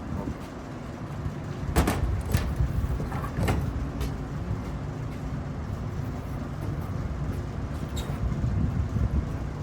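A few sharp metal knocks and clanks as an air conditioner's fan and motor are handled and pulled out, over a steady low rumble.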